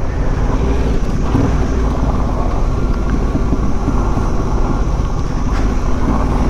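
A Yamaha Ténéré 700's parallel-twin engine running as the bike rides along a dirt track at a steady pace, heard as a continuous low rumble with wind noise on the microphone.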